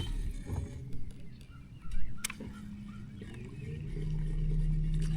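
Boat motor humming steadily, louder in the last second and a half, with a sharp click at the start and another about two seconds in.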